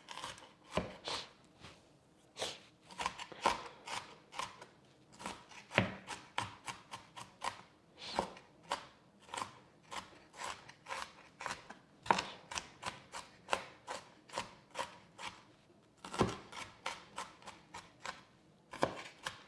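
Knife chopping on a cutting board in quick, irregular strokes, pausing briefly about two seconds in and again about sixteen seconds in.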